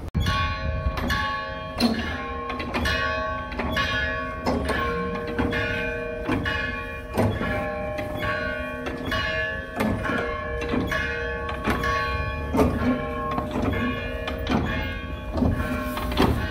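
Church bells rung by hand from ropes: several bells of different pitch struck in a quick, uneven peal, about two strikes a second, each tone ringing on under the next.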